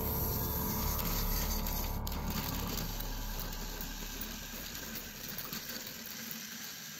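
Small electric motors of battery-powered Plarail toy locomotives whirring, with gears and wheels clattering on plastic track, as two engines push head to head against each other. The sound slowly grows quieter.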